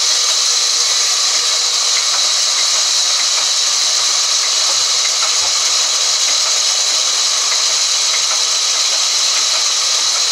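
Large vertical band saw cutting lengthwise through a thick wood slab as it is fed through the blade: a loud, steady hiss.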